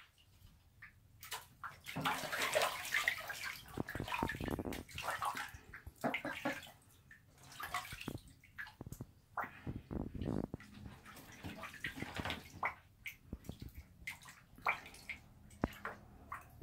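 Bathtub water splashing and sloshing as two young ducks swim and paddle about, in irregular bursts that are busiest from about two seconds in until past the middle, then thin out to scattered small splashes.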